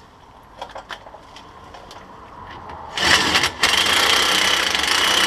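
A few light metal clicks, then about three seconds in a power wrench starts up and runs steadily, driving in an 18 mm brake caliper bolt, with a brief dip just after it starts.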